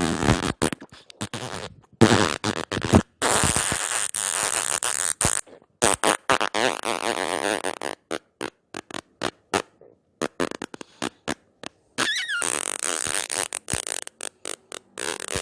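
A run of fart sound effects: longer spluttering blasts broken into quick pulses, with a string of short separate pops in the middle. One blast about twelve seconds in has a squeaky rising pitch.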